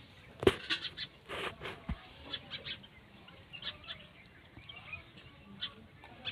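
Puppies eating torn pieces of dry flatbread off the ground: irregular chewing, crunching and smacking, with the sharpest crunch about half a second in.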